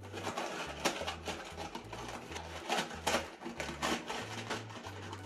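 Small game pieces clicking and rattling against a cardboard box insert as they are pried out of its slots by hand, with irregular rustling and scraping.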